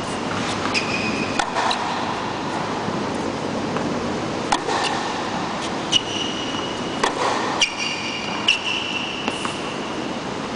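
Indoor tennis rally: tennis balls struck by rackets and bouncing on the court as sharp irregular pocks, about nine, some in quick pairs. Several are followed by short high squeaks of tennis shoes on the court surface, over a steady hall noise.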